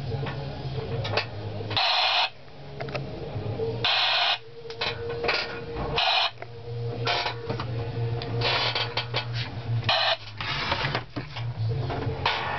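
Vietnam-era military radio set heard through its loudspeaker: a steady low hum broken several times by short bursts of static hiss.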